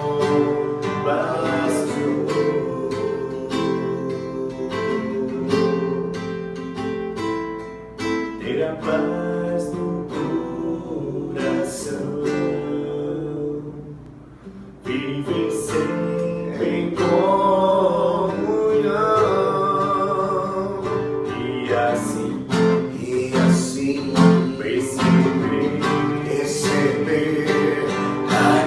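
Acoustic guitar-led worship song music, mainly instrumental here. It thins out to a brief quiet dip about halfway through, then builds back up.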